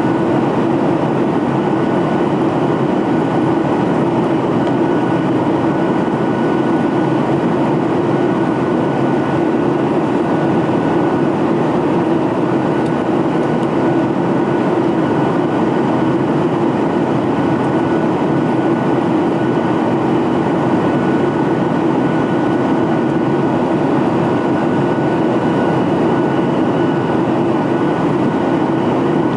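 Boeing 737-800's CFM56-7B jet engines running steadily: a loud, even rumble with a thin, constant whine over it.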